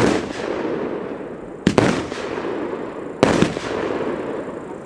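Aerial fireworks bursting: sharp bangs about every one and a half seconds, the later ones in quick pairs, each followed by a noisy tail that fades over about a second.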